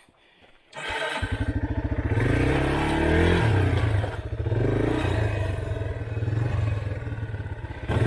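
Yamaha dirt bike's single-cylinder engine starting about a second in, revving up, then running on under throttle as the bike rides along. A loud clatter comes right at the end.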